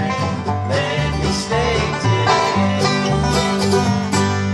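Live acoustic bluegrass jam: strummed acoustic guitars over a plucked upright bass line.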